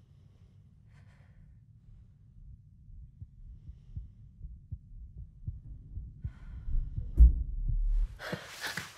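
Film score sound design: a low rumble with irregular deep pulses that builds steadily in loudness, with a heavy low hit about seven seconds in. A sudden burst of louder, harsher noise sets in near the end.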